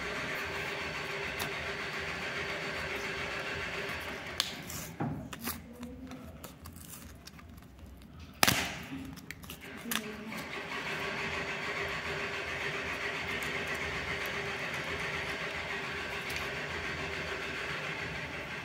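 Blister-pack packaging being torn open by hand: a few sharp clicks and crackles of card and plastic between about four and ten seconds in, the loudest a snap about eight and a half seconds in. A steady background hum and hiss runs under it.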